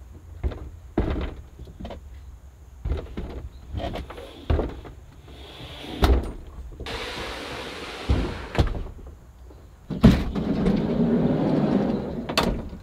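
Plastic fishing kayak hull knocking and scraping as it is pushed into a van's cargo area: a string of knocks and thumps, a brief hiss of sliding, then a longer, louder scraping slide about ten seconds in.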